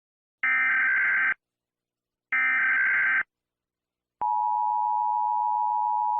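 Emergency Alert System tones: two SAME data bursts of warbling digital tones, each about a second long, then from about four seconds in the steady two-tone EAS attention signal, which stops near the end.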